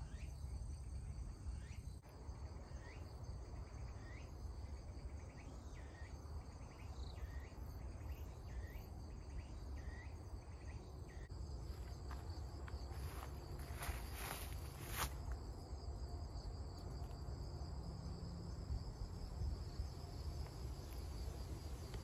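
Crickets and other autumn insects trilling steadily. For the first half a short rising chirp repeats about once a second.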